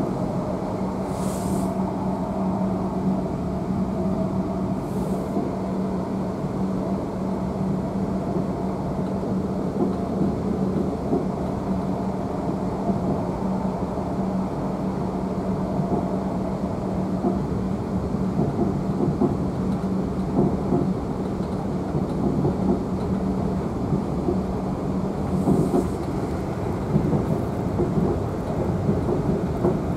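Interior running noise of a Class 444 Desiro electric multiple unit at speed: a steady rumble with a low hum, heard inside the passenger saloon. A few brief hisses come through, about a second in, around five seconds and near the end.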